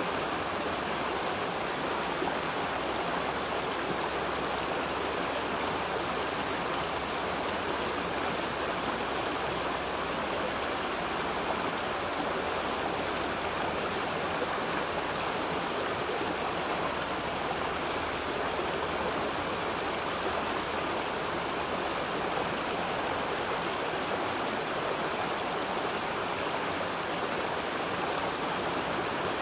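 Running water rushing steadily and evenly.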